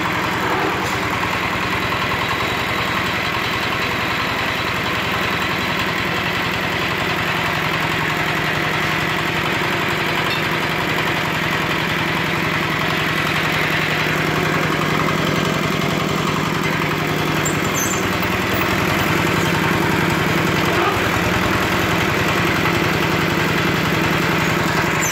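Engine of a concrete and goods lift hoist running steadily, with a slight change in its note about sixteen seconds in.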